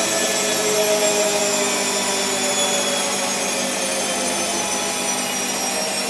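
Washing machine running: a steady motor whine whose tones drift slowly down in pitch, over a continuous hiss.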